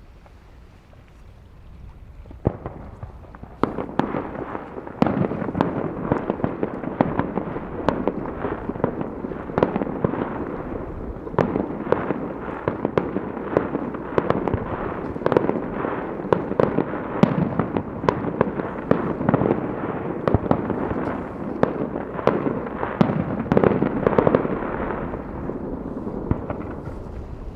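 Fireworks display: a fast barrage of aerial shells bursting, bangs and crackles overlapping densely, starting about three seconds in and thinning out near the end.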